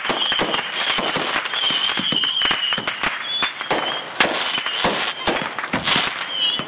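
Consumer fireworks going off: a rapid, irregular string of pops and crackles, with a louder bang a little past four seconds in, over a wavering high whistle that comes and goes.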